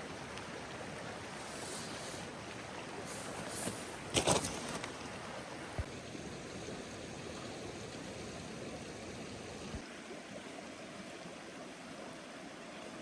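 River water flowing steadily, with a brief louder noise about four seconds in.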